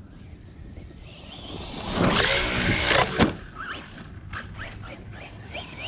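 Losi Tenacity TT Pro RC trophy truck's brushless motor whining as the truck is driven, rising in pitch and growing loudest about two to three seconds in, with a sharp knock just after three seconds. After that it is quieter, with short high whines.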